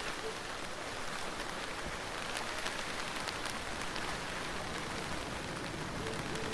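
Steady rainfall, an even hiss of rain with scattered sharper drop hits on a surface.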